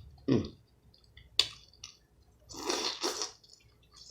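Close-up eating sounds of a person eating seafood: wet mouth smacks and chewing, with a sharp click about a second and a half in and a longer wet squishy sound near the three-second mark.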